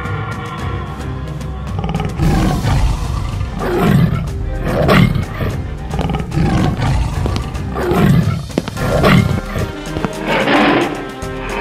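Background music with a series of loud animal roar sound effects laid over it, starting about two seconds in and repeating several times until near the end.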